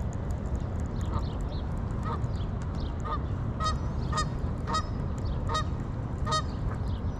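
Geese honking repeatedly, about eight short calls spaced roughly half a second to a second apart and strongest in the middle, over a steady low rumble.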